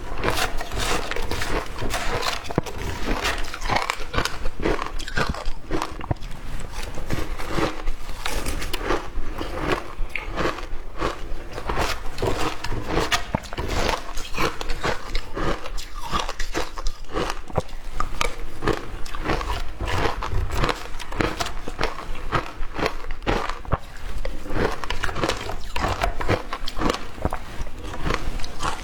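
Shaved ice being bitten and chewed close to the microphone: a continuous run of dense, irregular crunches and crackles.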